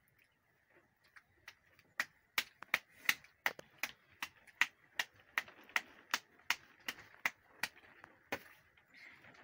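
Hands patting a ball of dough flat for a flatbread: a quick, regular run of sharp slaps, about three a second, that starts about two seconds in and stops near the end.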